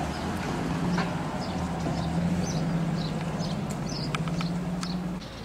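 A vintage sedan's engine running slowly as the car pulls away, a steady low hum that fades out near the end. Small birds chirp briefly now and then, with a few light clicks.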